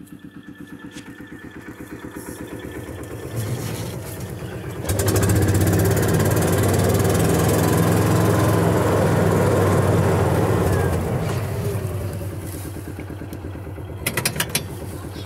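Old Kawasaki Mule utility vehicle's engine idling with a pulsing exhaust beat, then running loud from about five seconds in as it pulls away, easing off after about eleven seconds; its exhaust is noisy from a hole rusted through the muffler. A few sharp clicks near the end.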